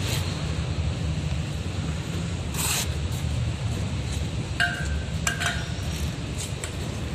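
Steady low rumble with a short hiss about two and a half seconds in, then two light metallic clinks with a brief ring a little under a second apart.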